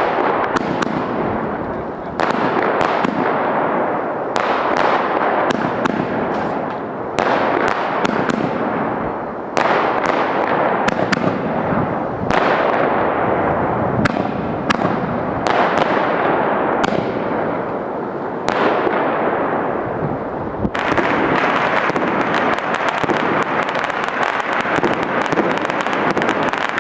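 Chinese New Year fireworks and firecrackers going off on all sides at once: a continuous dense crackle packed with many sharp bangs. The barrage grows thicker and more unbroken near the end.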